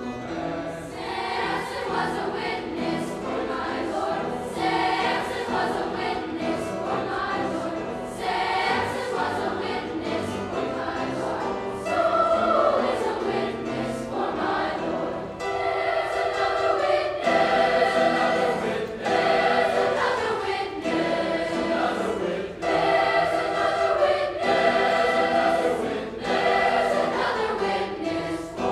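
A large school choir singing a held, sustained passage, getting louder a little before halfway through.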